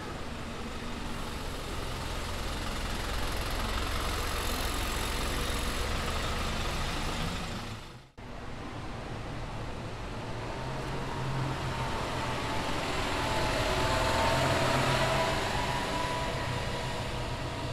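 Route buses' engines running as they move through the station, with tyre and traffic noise. The sound breaks off sharply about eight seconds in, where one bus clip cuts to the next. In the second part a steady whine rides over the engine as it grows louder, loudest about two-thirds of the way in.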